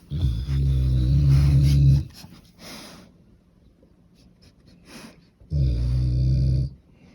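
Cane Corso snoring loudly: two long, low snores, the first about two seconds and the second about a second, some five seconds apart, with softer breaths between.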